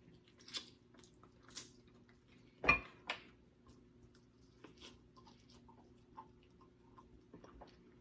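Close-up eating sounds from pork neckbones: scattered wet mouth clicks and smacks. One louder thump with a click comes about two and a half seconds in.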